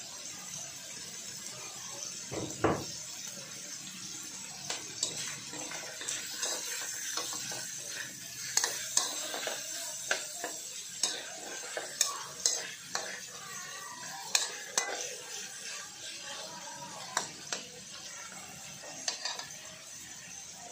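Cubes of pork belly sizzling in a wok, with a metal spatula scraping and clinking against the pan as they are stirred; the pork is browning and rendering its own fat. A dull knock comes about two and a half seconds in.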